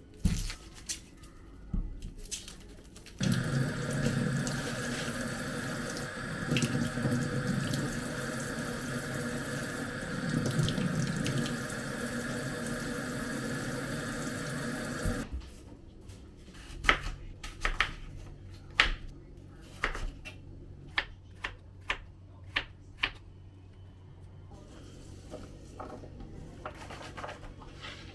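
A water tap running steadily into a sink for about twelve seconds, then shut off suddenly. Scattered clicks and knocks of handling things come before and after.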